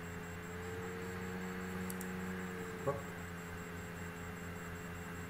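Steady electrical hum with background hiss, a fainter tone held for a couple of seconds, and one short blip about three seconds in.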